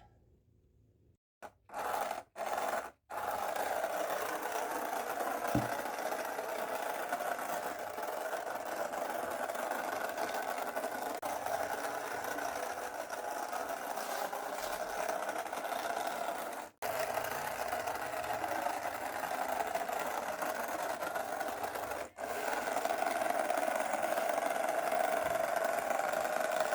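Small geared electric motors of a cardboard RC grader running with a steady whirring buzz, switched on briefly twice near the start and then run continuously, cutting out for a moment twice.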